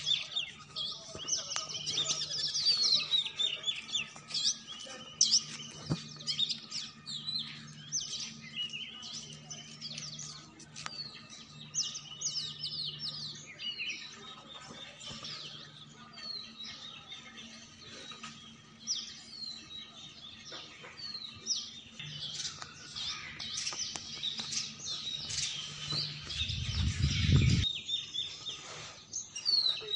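Many small birds chirping and twittering continuously, with a faint steady hum underneath. A brief low rumble sounds near the end.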